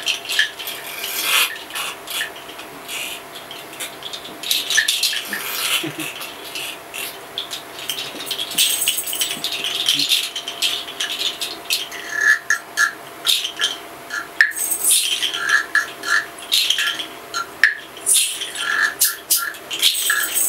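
Hand percussion being played: a carved wooden rattle is shaken and scraped while a bunch of small jingles is shaken, giving irregular rattling and rubbing. From about twelve seconds in, short clusters of higher clinking notes join in. A faint steady hum runs underneath.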